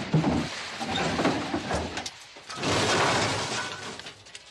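Car crash sound effect: a sudden impact with breaking glass and clattering debris, then a second burst of shattering about two and a half seconds in, fading away near the end.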